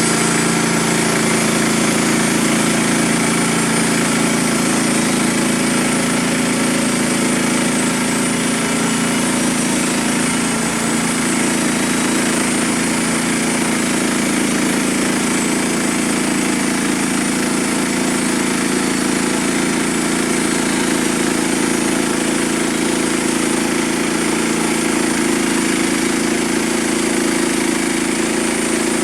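Frontier OS27 band sawmill's gas engine running steadily, driving the band saw blade.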